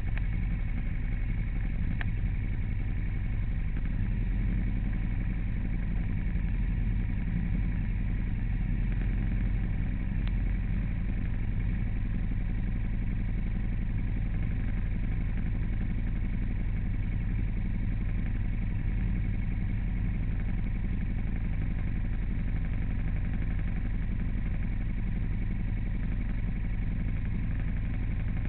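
A vehicle engine running steadily, a constant low drone with a few faint steady tones over it and no change in pace; a faint click about two seconds in.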